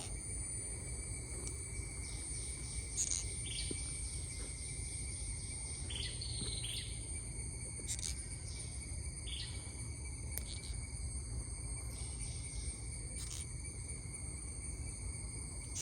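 Insects, crickets among them, shrilling steadily in two high continuous tones, with a few short chirps over them and a low steady rumble underneath.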